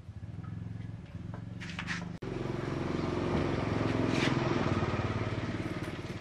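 Motorcycle engine running. About two seconds in, after a brief dip, it gets louder and fuller, then eases off near the end.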